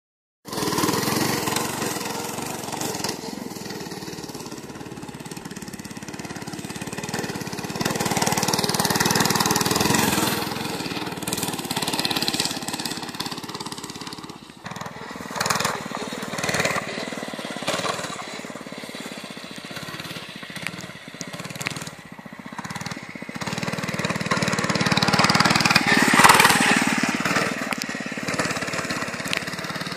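Small mini bike engines running and revving on a dirt track, the sound rising and falling as the bikes ride past. It swells about a third of the way in and again near the end.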